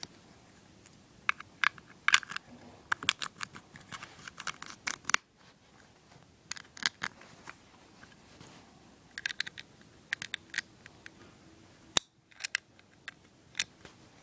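Plastic LEGO pieces clicking as they are pressed onto a small speed-boat model, in scattered clusters of sharp clicks.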